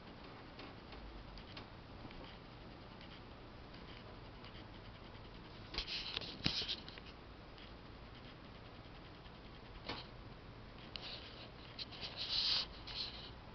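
Faint scratchy rustling and small clicks of a pet rabbit being stroked and shifting about on a towel, with short louder bursts of rustling about six seconds in and again near the end.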